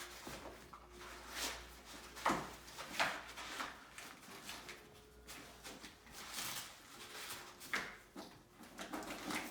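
A dog tearing and shredding a cardboard puzzle box: irregular rustling and ripping, with sharper rips about two and three seconds in and again near the end.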